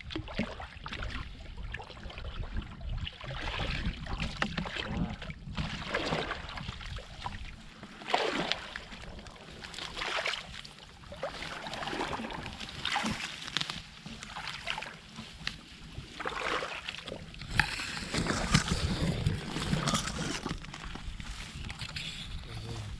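Irregular sloshing and splashing of shallow muddy water as a person wades through it, legs and a woven fish basket pushing through the water and weeds.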